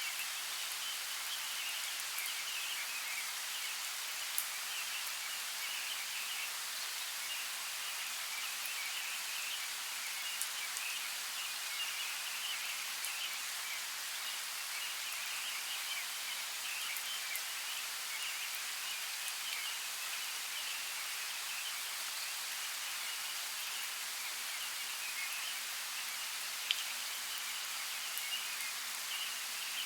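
Light rain falling steadily in a forest: an even hiss, with a few sharp louder drops ticking now and then.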